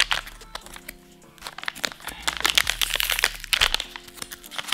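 Soft plastic pack of wet wipes crinkling as the seal sticker is peeled off its flip-top opening. The crinkling is busiest in the second half, with a sharp click at the start. Background music plays throughout.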